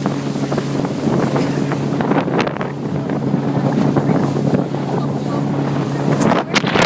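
Motorboat engine running with a steady low hum while wind buffets the microphone. About six seconds in the hum drops away and a louder rush of wind takes over.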